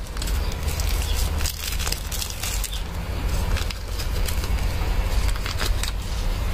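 Small plastic bag of fried garlic crinkling and rustling as it is shaken and tapped over bowls of laksa, in many short irregular crackles, over a steady low rumble.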